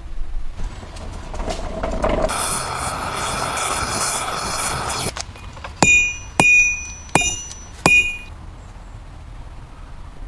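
A steady rushing hiss lasting about three seconds, then four sharp ringing clinks of metal parts struck together over about two seconds.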